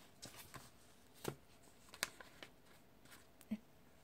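Sticker sheets of paper being handled and shuffled on a table: faint rustles and about seven light, separate taps and clicks.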